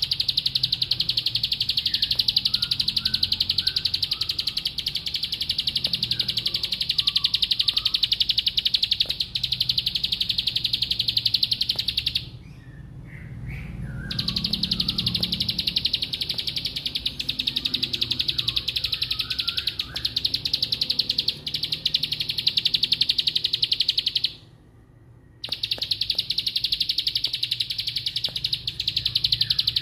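A caged ciblek sawah (a prinia) sings its 'bren' song, a long, extremely fast, even trill likened to clacking lato-lato balls. It holds the trill for about twelve seconds, stops briefly, sings about ten seconds more, pauses again for about a second, then starts a final stretch.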